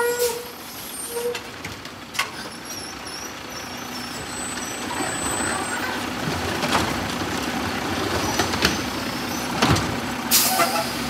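Garbage truck engine working up under load as the Heil Rapid Rail automated arm lifts a trash cart, tips it into the hopper and sets it back down, with knocks and rattles from the cart and arm. A short burst of air hiss comes near the end.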